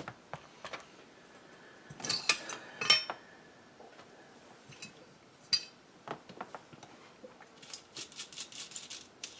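Small metal screws clinking as they are dropped into a container, a loud cluster of clinks about two seconds in. Then scattered clicks and a quick run of light ticks near the end as small parts are handled.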